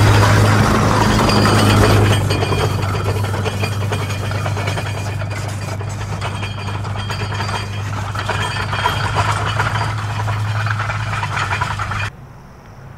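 Car driving steadily along a railway track: the engine's steady low hum under a rough rumble of the wheels on the track. The sound drops away abruptly near the end.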